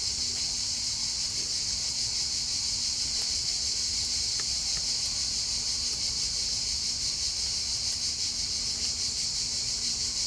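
A chorus of insects trilling steadily and high-pitched without a break, with a faint steady low hum beneath.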